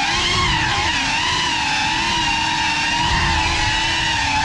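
Small FPV drone's electric motors and propellers whining, the pitch wavering up and down with the throttle, heard close from the drone itself.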